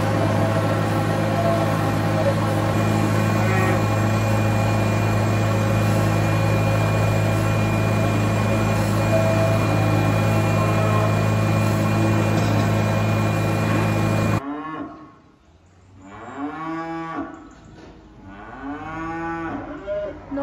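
A vehicle engine running steadily, which cuts off abruptly about fourteen seconds in, followed by calves mooing: two long moos, with a third starting near the end.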